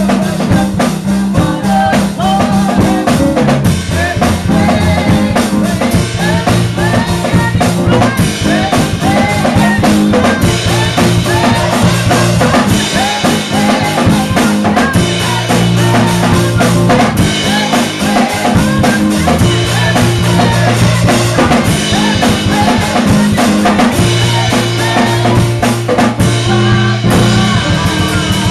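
Live gospel music: a woman's voice singing and wailing into a microphone over a driving drum kit and a keyboard holding low bass notes that change every couple of seconds.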